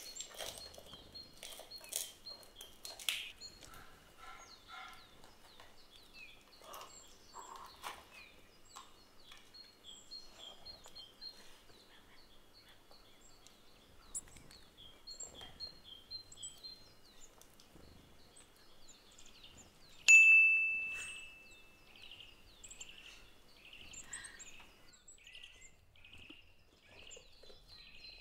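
Scissors snipping through packing tape and plastic wrap on a cardboard box, with packaging rustling, over small birds chirping throughout. About twenty seconds in, a single clear metallic ding rings out and fades over about two seconds.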